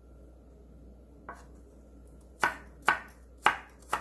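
Kitchen knife chopping garlic slices into thin matchsticks on a wooden cutting board: one soft knock about a second in, then four sharp knife strikes on the board about half a second apart.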